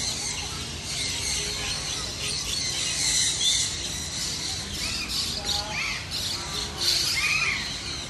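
Many birds in an aviary calling over one another: short chirps and squeals that rise and fall, scattered irregularly over a steady background hiss.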